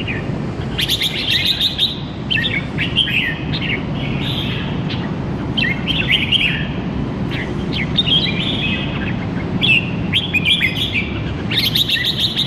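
Caged red-whiskered bulbuls singing short warbled phrases, repeated every second or two with brief gaps, over a steady low background rumble.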